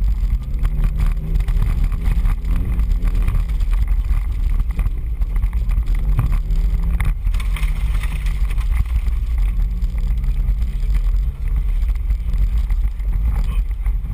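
Off-road 4x4 engine running as it drives along a rough dirt trail, its note rising and falling with the throttle over a steady low rumble, with wind buffeting the microphone.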